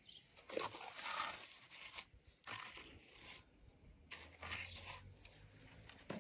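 Steel trowel spreading and scraping wet cement render over fibreglass mesh, in several separate scraping strokes.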